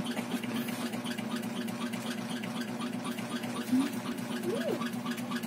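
Steady low hum of a small motor with a fast, even pulse, and a short chirp that rises and falls in pitch a little after four and a half seconds in.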